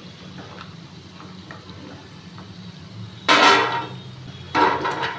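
Shakkarpare frying in hot oil with a steady sizzle while a metal slotted spoon scrapes through the pan, then two loud metallic clatters, about three and four and a half seconds in, as the fried pieces are tipped out onto a steel plate.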